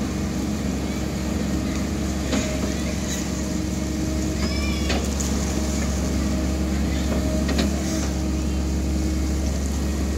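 Excavator's diesel engine running steadily, a constant low drone with a steady hum, with a few short high-pitched chirps over it about two and four and a half seconds in.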